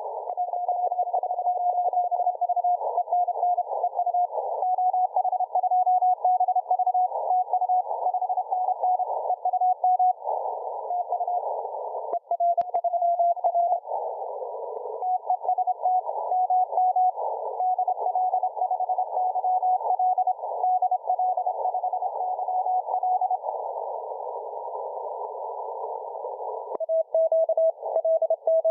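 Morse code (CW) radio signal on a receiver: a single keyed tone beeping dots and dashes over narrow-band hiss. The beeping drops out for stretches, leaving only hiss. Near the end there is a click and the tone returns slightly lower in pitch.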